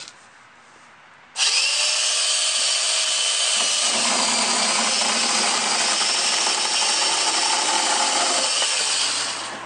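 Cordless angle grinder converted to a small chainsaw with a bar-and-chain attachment, starting up suddenly about a second in with a rising whine and sawing into a tree branch for about eight seconds, then winding down near the end. It runs on a small battery that the owner fears may not be strong enough.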